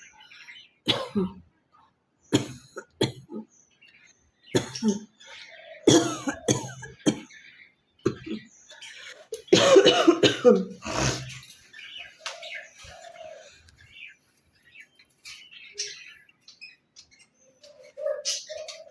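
A woman coughing repeatedly in short fits, with some throat clearing, the longest and hardest fit about ten seconds in.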